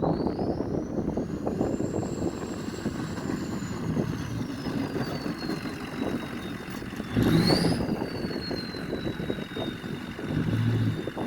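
Turbocharger whistle of a Ford 6.0 Power Stroke V8 diesel pickup: a thin high whine climbs over the first two seconds, then slowly falls away. About seven seconds in it jumps up again with a brief louder surge of engine noise, then settles to a steady whine over the diesel's rumble.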